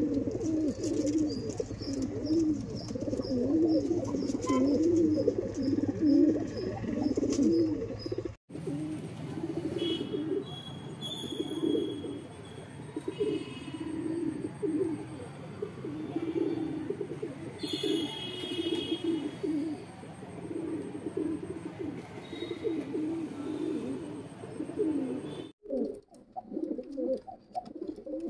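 Andhra high flyer pigeons cooing over and over, a low rolling coo that repeats without pause and breaks off abruptly twice where clips are joined.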